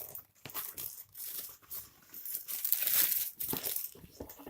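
Crinkly shoe packaging rustling and crackling in irregular bursts as it is opened and the shoes are taken out, loudest about three seconds in.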